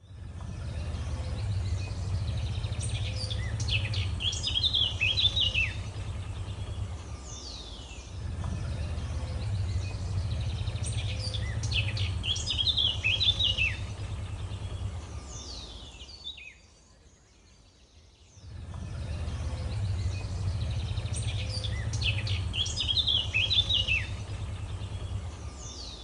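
Forest ambience of birds chirping over a steady low rumble. The same burst of quick, falling chirps comes back three times. Partway through, the sound fades out for about two seconds, then returns.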